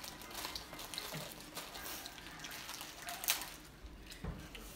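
Eating at a table: wet chewing and slurping of noodles, with scattered light clicks, the sharpest about three seconds in.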